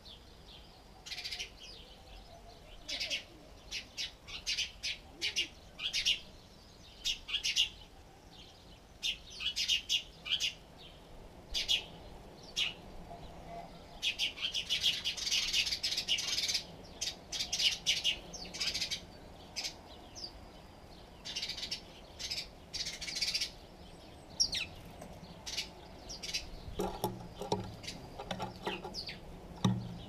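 House sparrows chirping, with many short, high chirps coming singly and in quick runs, thickest about halfway through. A few low knocks or flutters sound near the end.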